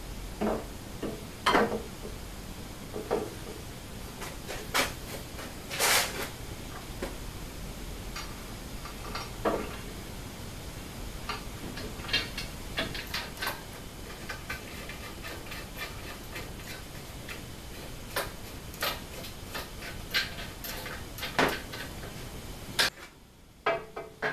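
Aluminium extrusions with steel linear rails and bearing blocks being handled and fitted onto a CNC router's gantry side plates: irregular metal knocks, clinks and clicks, some with a short ring.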